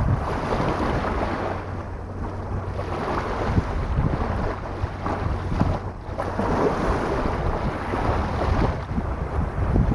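Sea waves washing onto the shore in repeated swells, with wind buffeting the microphone as a low rumble.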